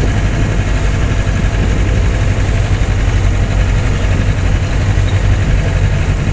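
Motor vehicle engine running steadily on the move, a low hum under a rushing noise of wind and road.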